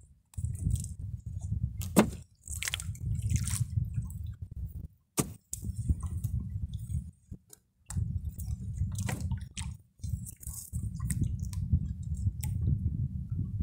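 Wet handling of a fishing net as fish are worked out of the mesh: squishing, dripping and rustling, with scattered clicks, a sharp one about two seconds in. A low rumble runs under it in stretches broken by short gaps.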